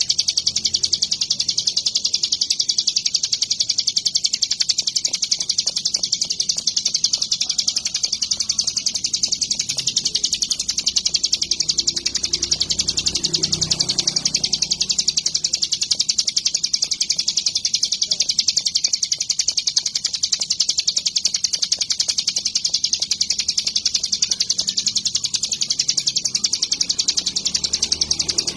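A ciblek gunung, a small prinia, singing nonstop: a fast, high-pitched chattering trill with no breaks.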